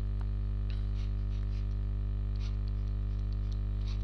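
Steady electrical mains hum with a ladder of low overtones, with a few faint scattered ticks over it.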